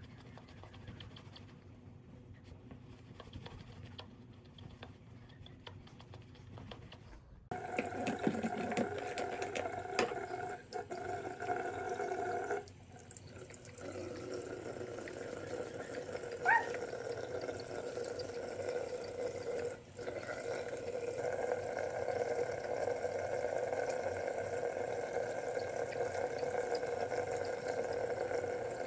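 Bathroom sink tap running steadily, water splashing over a puppy held under the stream and into the basin. The water comes in about a quarter of the way in after a quiet start, with a brief high squeak about halfway through.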